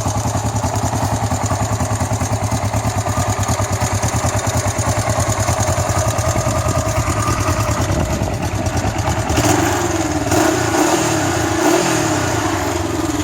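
Kawasaki GPZ305's air-cooled twin-cylinder engine idling with an even beat, then given a few short throttle blips in the last few seconds; running very well.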